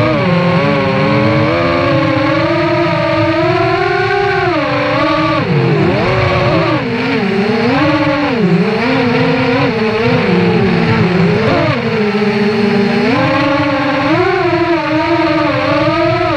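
Brushless motors and propellers of an FPV racing quadcopter whining in flight, the pitch rising and falling with each throttle change and dropping sharply a couple of times midway.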